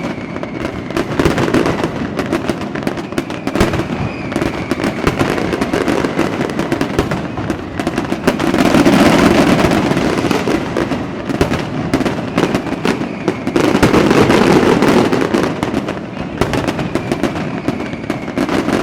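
Fireworks display: dense, continuous crackling and popping of many shells, with faint whistles from rising rockets here and there. It swells louder about halfway through and again a few seconds later.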